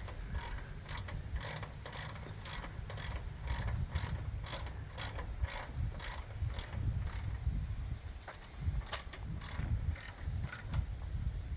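Hand ratchet wrench with an Allen (hex) bit socket clicking steadily, about two to three clicks a second, as a motorcycle crash-bar bolt is cranked down. The clicking stops briefly a little past the middle, then carries on.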